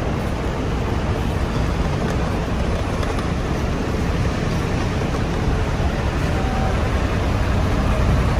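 Steady low rumble of idling coach buses and road traffic.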